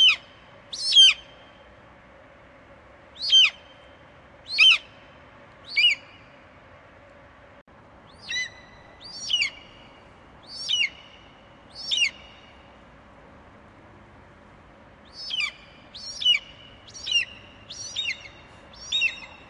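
Bald eagle calling: a series of short, high, piercing whistled notes, each sliding down in pitch, about one a second in runs of two to five notes with short pauses between the runs.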